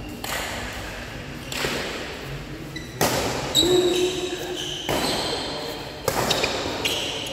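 Badminton rackets striking a shuttlecock during a rally, about five sharp smacks a second or two apart, each echoing in a large hall.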